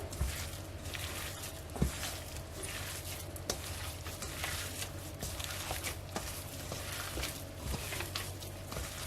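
Hands mixing raw minced pork with seasonings and flour in a bowl: repeated soft squishing strokes with a few light clicks, over a steady low hum.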